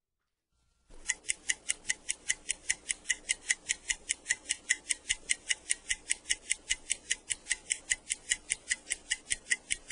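Fast, steady clock ticking, about four to five ticks a second, starting about a second in out of silence.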